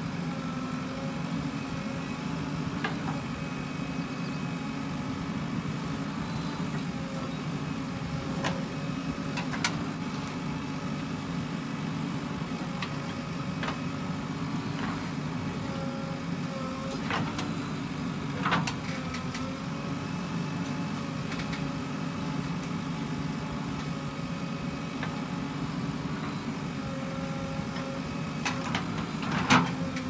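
JCB 3DX backhoe loader's diesel engine running steadily as it digs and swings its bucket, with a few short clunks and knocks from the bucket and arm.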